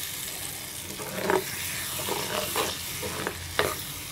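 Ground tomato and fried onions sizzling in hot oil in a clay pot. A steel spoon stirs and knocks against the pot in a few short clicks.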